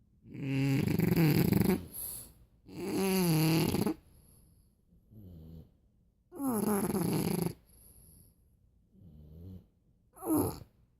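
Two dogs snoring in tandem: long, loud snores about every three seconds, with softer snores in between and a short one near the end.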